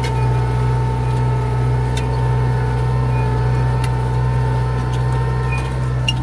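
Tractor engine running at a steady speed, a constant low hum with a steady whine above it and a few faint clicks.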